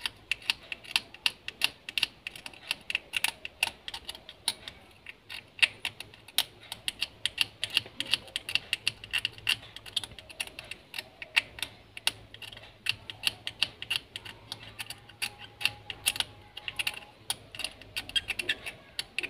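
Blade scraping carbon off a switch's copper contact point in many short, quick, irregular strokes. The carbon built up from sparking keeps the switch from making connection.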